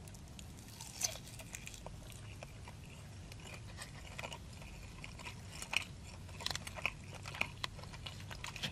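A person chewing a bite of sauce-covered buffalo chicken tender close to the microphone, with soft wet mouth clicks and smacks scattered throughout, getting busier about halfway through.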